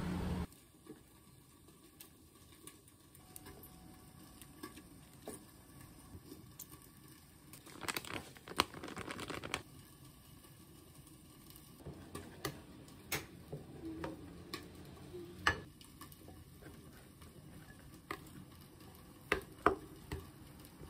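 Quiet food-prep handling: scattered small taps as shelled edamame drop into a glass bowl of rice, a plastic bag rustling for about a second and a half about eight seconds in as salted kelp is shaken out, and a rice paddle tapping and scraping in the glass bowl near the end as the rice is mixed.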